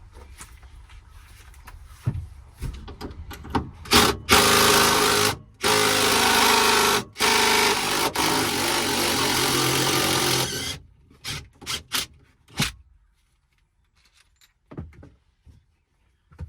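Cordless power tool running in three loud bursts, the longest about three and a half seconds, while it loosens a seat-belt anchor bolt. Light clicks and knocks of handling come before the bursts, and a few knocks follow them.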